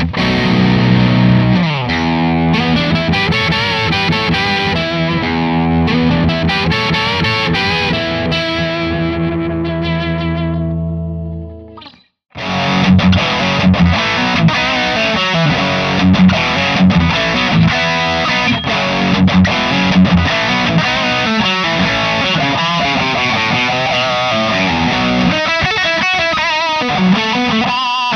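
Distorted electric guitar played through the Overloud TH-U amp simulator. First comes a driven preset on a 2x12 cabinet, with chords left to ring and fade out to a brief silence about twelve seconds in. Then a higher-gain preset on a 4x12 cabinet plays busy, heavily distorted riffs.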